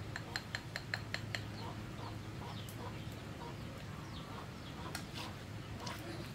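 A quick run of about seven sharp taps in the first second and a half, followed by scattered faint chirps and clucks of chickens, over a steady low hum.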